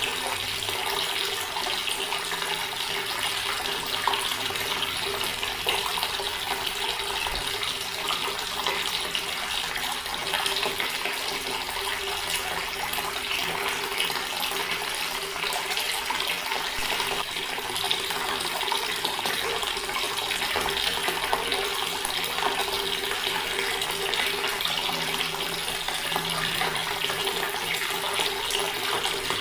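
Water running steadily from a tap, a continuous splashing stream.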